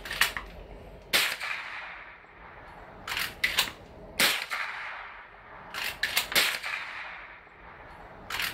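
Marlin 39-A .22 rimfire lever-action rifle firing single shots a few seconds apart, each sharp crack followed by a short echo, with clusters of quieter metallic clicks between shots as the lever is worked.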